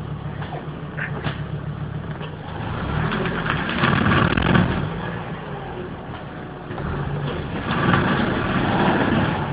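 Volvo 850 AWD engine revved up twice under load, with a steady running sound between the surges. The viscous coupling is straining to drive the rear wheels against the applied handbrake while the jacked-up front wheels spin free.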